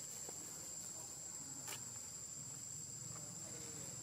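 Steady high-pitched drone of an insect chorus in woodland, with one sharp click partway through.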